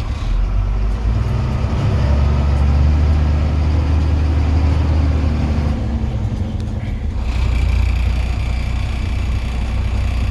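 2000 Freightliner dump truck's diesel engine running. Its note rises about a second in, holds, and drops back at about six seconds, as the truck is driven after its air pressure has built up.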